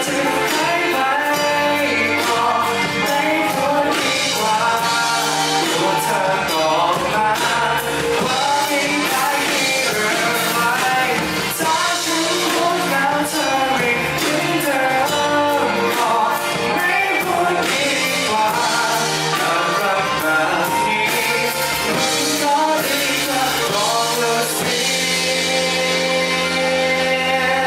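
Live pop-rock band music with a singing voice over drums. Near the end the band holds a long, steady final chord.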